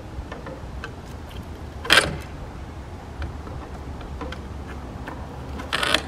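Dryer-vent cleaning rod clattering against the exterior dryer vent hood as it is pushed out through the duct: light scattered clicks and two sharp knocks, about two seconds in and near the end, over a low steady rumble.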